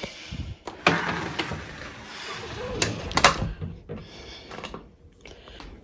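A door being moved and handled close to the phone: rustling with a few sharp knocks, loudest about one second in and about three seconds in.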